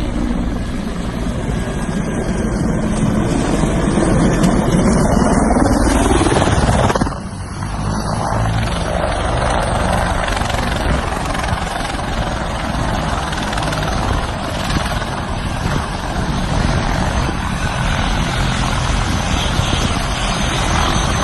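Helicopter heard up close: dense rotor and engine noise with a rising pitch over the first six seconds or so. The level drops suddenly about seven seconds in, then the helicopter runs on steadily.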